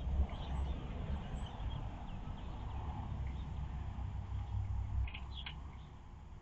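Outdoor ambience: a low, uneven rumble with a few short, faint high chirps, and a brighter pair of chirps about five seconds in. The rumble fades near the end.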